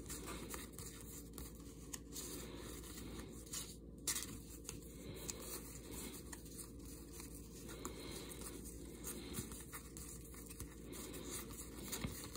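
A stack of cardboard trading cards being thumbed through by hand: faint sliding and rubbing of card on card, with scattered light flicks and clicks as the cards are moved.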